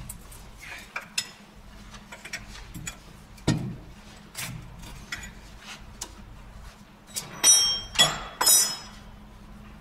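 Metal tools and parts clinking and clanking during hands-on work on a truck trailer's brake assembly: scattered light taps, a duller knock about three and a half seconds in, then three louder clanks with a metallic ring close together near the end.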